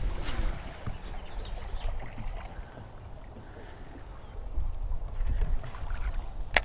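Uneven low rumble of wind on the microphone and water moving around a small fishing boat, with a faint steady high-pitched whine underneath. A single sharp click comes right at the end.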